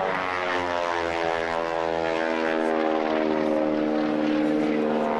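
Propeller airplane's engine droning overhead: a steady, pitched engine tone holding level as the aircraft climbs.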